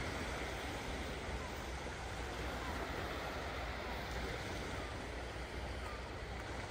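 Small Mediterranean waves washing onto a sandy beach: a steady wash of surf with a low rumble underneath.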